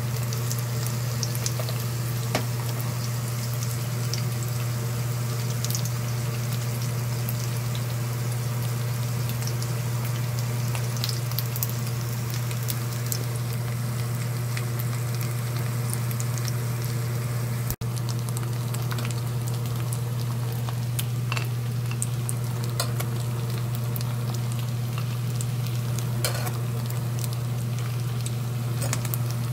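Battered guobaorou pork pieces frying in shallow oil in a stainless steel pan: a steady sizzle with scattered small crackles, over a constant low hum. The sound breaks off for an instant a little past halfway.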